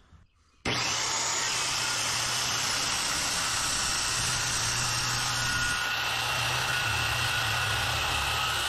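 Handheld circular saw cutting across a reclaimed white oak board, running steadily under load as it trims off the board's rotten end. The sound starts abruptly about half a second in.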